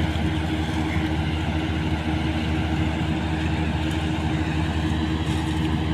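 Combine harvester's diesel engine running steadily, a constant hum that holds one pitch throughout.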